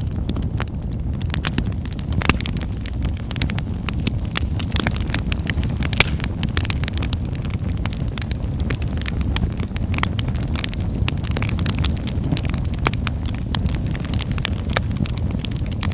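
Wood fire burning in a fireplace: a steady low rumble of the flames with frequent sharp crackles and pops of burning wood scattered throughout.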